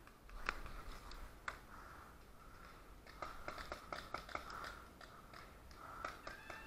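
Paintball markers firing: faint sharp pops, two single shots in the first two seconds, then a quick string of about ten shots around the middle, and a few more near the end.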